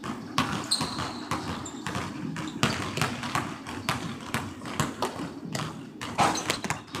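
A basketball dribbled hard on a hardwood gym floor, about three bounces a second, echoing in a large hall. A louder bang about six seconds in, as the ball is dunked.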